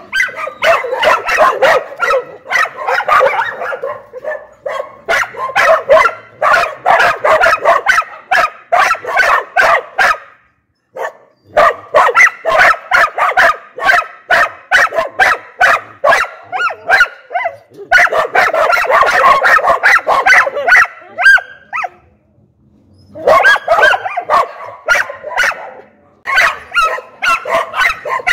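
Dog barking in long fast runs of sharp barks, about four a second, with two short breaks.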